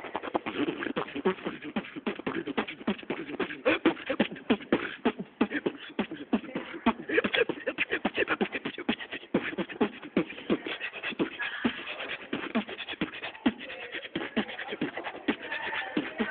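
A young man beatboxing: a fast, dense, unbroken run of mouth-made percussion strokes.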